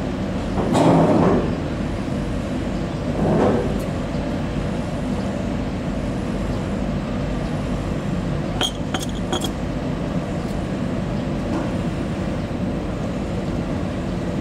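Steady low engine drone heard aboard a fibreglass passenger boat, with a quick run of sharp glassy clinks about nine seconds in.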